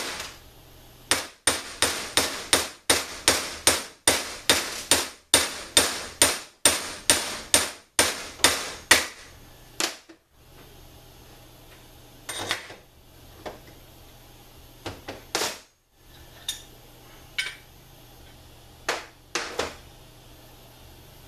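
Hammer blows on a bushing driver, driving a new bushing into a TH400 transmission's pump stator shaft: a quick, even run of sharp metal strikes, about three a second, that stops about nine seconds in. A few separate knocks follow.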